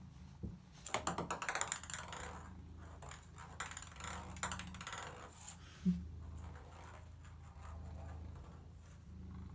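A ping pong ball clattering against a bathtub as a cat bats it: a fast run of light clicks from about one to two seconds in, then scattered taps, and a single dull knock about six seconds in. A steady low cat purr runs underneath.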